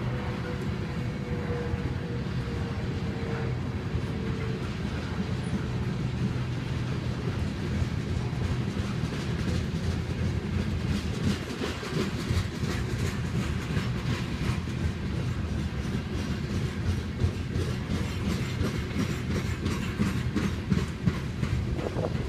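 Freight train of covered hopper cars rolling steadily past, steel wheels clicking over the rail joints, the clicks coming thicker in the second half.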